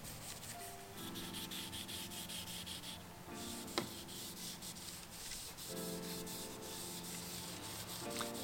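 An old cotton sock rubbing back and forth along a wooden bicycle rim, wiping on a tung oil and citrus solvent finish, in stretches of scrubbing strokes. A single sharp click a little before the middle, over soft background music.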